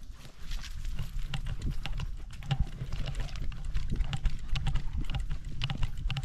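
Mini shar-pei trotting along a dirt trail with a GoPro strapped to its harness: a quick, uneven run of footfalls and knocks as the camera mount jostles and rubs with each stride, over a low bumping.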